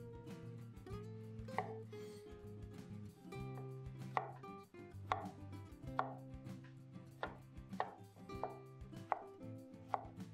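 Background music with held notes, over which sharp knocks land at an uneven pace of about one a second, like chopping on a board.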